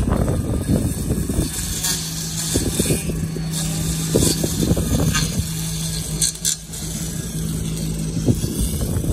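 Makita XGT 40Vx2 UR012G cordless brush cutter running under load, its spinning line head giving a steady hum. Irregular swishes come and go as the line slashes through grass.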